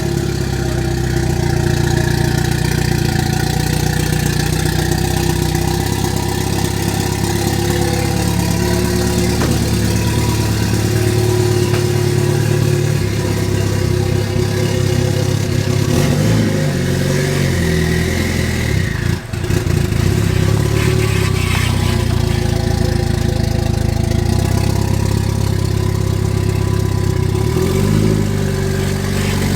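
Rebuilt Mitsubishi Lancer Evolution 8's turbocharged 4G63 inline-four idling steadily just after starting up, the idle wavering a little now and then, with a brief drop about 19 seconds in.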